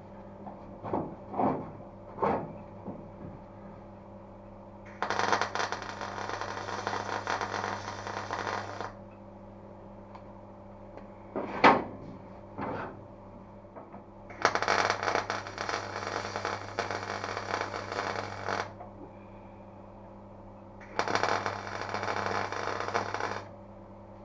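MIG welder welding a steel car floor in three runs: about four seconds, then four, then two and a half. A few sharp knocks fall before and between the runs, over a steady hum.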